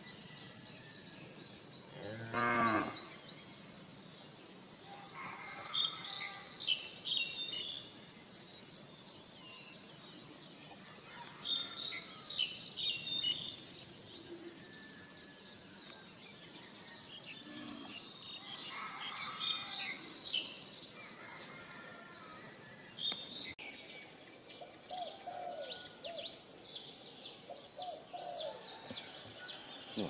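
Birds chirping and singing in short repeated phrases, with one short, low call lowing like a cow about two and a half seconds in.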